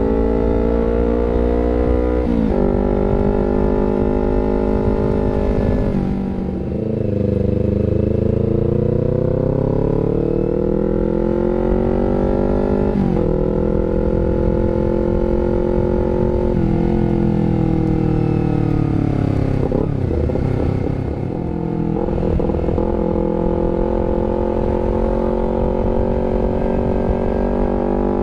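Honda CBR250RR engine through an R9 GP Series aftermarket exhaust, running continuously with the revs rising and falling. The pitch drops sharply a few times and sinks and climbs back twice.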